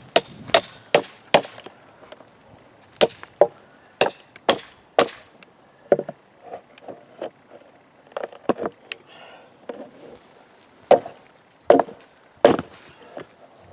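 Repeated sharp strikes on wood, in irregular clusters with short pauses between them, some with a cracking, splintering edge; the hardest blows come near the end.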